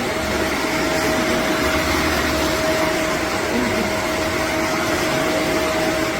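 Shark Stratos upright vacuum cleaner running steadily: a rush of air with a motor whine holding one pitch.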